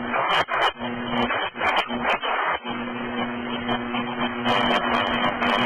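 Radio-channel static from an air traffic control frequency recording between transmissions: a steady hiss with scattered crackles. A low hum comes and goes, then holds steady from about halfway through.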